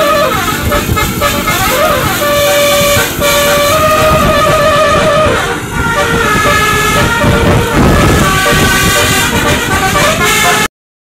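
Basuri 'telolet' musical horn on a tour bus playing a tune: held notes stepping up and down, loud over the bus's running noise. It cuts off suddenly near the end.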